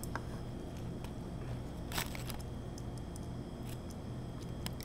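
Steady low room hum with a few faint clicks and smacks of people eating sticky, syrup-coated chicken wings; the sharpest click comes about two seconds in.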